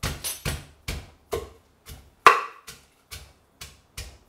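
Wooden pestle pounding garlic and whole Thai chilies in an earthenware mortar. The strokes fall steadily about twice a second, with one harder strike a little past the middle. This is the first stage of a papaya salad dressing: chili and garlic get the hardest pounding.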